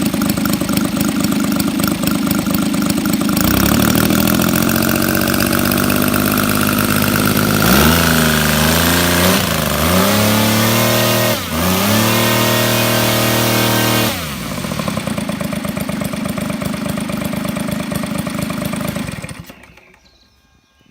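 Kolm IL230 model-aircraft engine breathing through a Zimmermann silencer and turning a four-blade propeller, run on the ground. It idles, is throttled up to a steady high run about three seconds in, and dips and picks up in revs a few times around the middle. It then drops back to idle and cuts off near the end.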